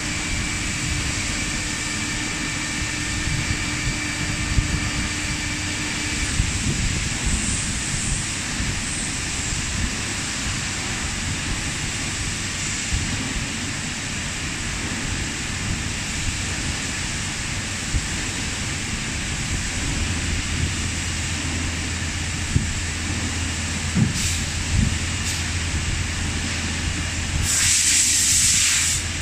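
Steady machine-shop machinery noise, with a low hum that comes in about two-thirds of the way through. Near the end there is a loud hiss lasting about a second and a half, like a burst of compressed air.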